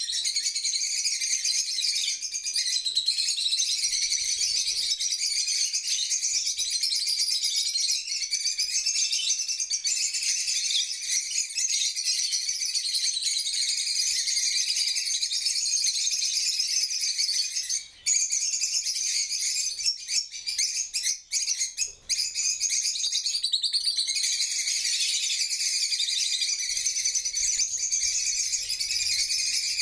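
A large flock of rosy-faced lovebirds chattering and chirping nonstop, a dense high-pitched twittering, with a few short breaks about two-thirds of the way through.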